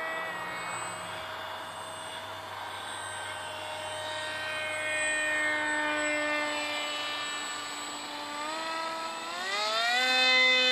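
Brushless electric motor and 4.75-inch pusher propeller of a small foam RC Su-37 jet whining in flight, a steady buzzing whine made of several stacked tones. The pitch sags a little about halfway through, then climbs in two steps near the end and grows louder as the throttle is opened.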